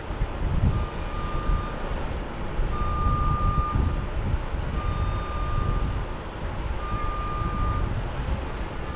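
An electronic beeper sounds a steady high tone of about a second, repeating every two seconds, over an uneven low rumble.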